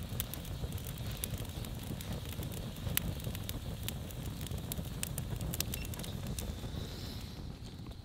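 Split-log wood campfire burning in a steel fire ring, with sharp crackles and pops scattered irregularly over a low steady rumble.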